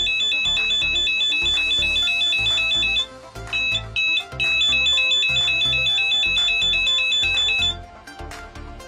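Boeing 737 ground crew call horn in the nose wheel well, sounding a loud, fast high two-tone warble. It stops about three seconds in, gives two short blips as the button is tapped, then sounds again for about three seconds and cuts off near the end.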